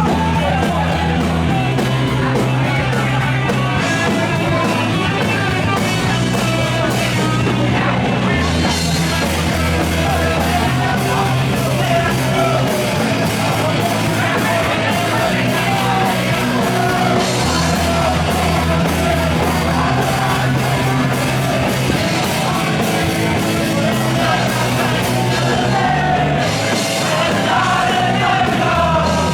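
Live punk rock band playing loud with distorted guitars, bass and drums, and shouted singing over the top.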